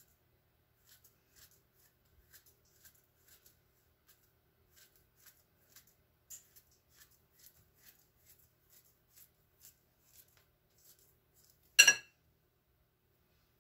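A banana being sliced with a knife over a dish, each cut a faint soft click, about two a second, then one sharp knock near the end.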